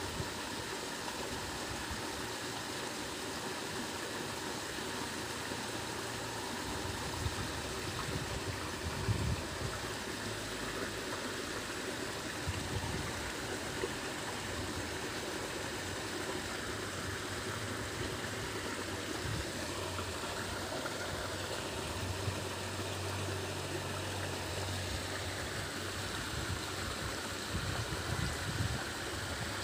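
A small stream running steadily, its water splashing over a low rock step, with a few faint knocks now and then.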